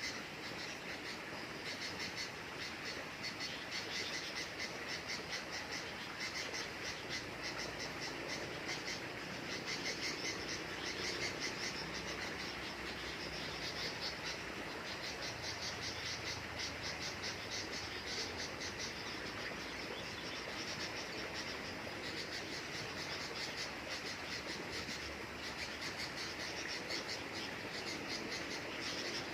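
A continuous chorus of calling insects: dense, high-pitched pulsing chirps that go on without a break.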